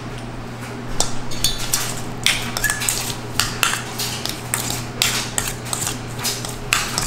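A metal spoon clinking and scraping against a stainless steel mixing bowl as shrimp are stirred in seasoning, in a quick irregular run of clinks starting about a second in, over a steady low hum.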